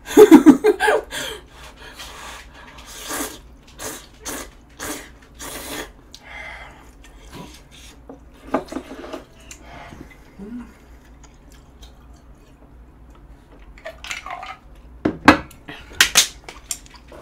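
Close-miked eating: ramen noodles slurped and chewed in a run of short wet smacks, then chopsticks and dishes clinking sharply near the end.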